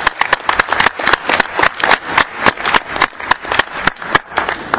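Hall of delegates applauding with rapid, irregular hand claps, approving the motion by acclamation; the clapping thins out near the end.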